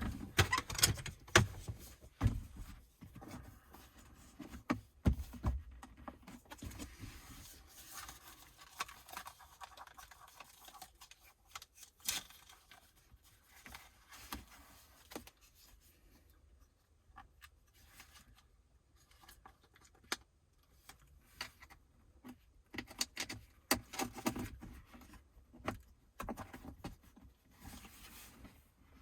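Scattered clicks, taps and scrapes of a wiring harness and plastic trim being handled as a charger cable is fed through a freshly drilled hole. The handling noises are louder in the first few seconds and again in a cluster near the end.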